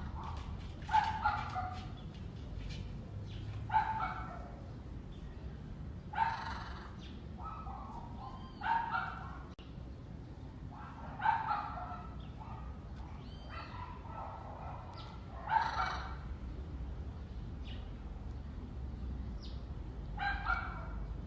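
An animal calling with short, harsh calls repeated every two to three seconds, about eight in all, over a low steady background.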